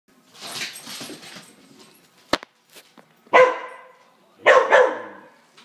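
A dog barking: one sharp bark, then two quick barks a second later. A soft rustling noise and a single sharp click come before the barks.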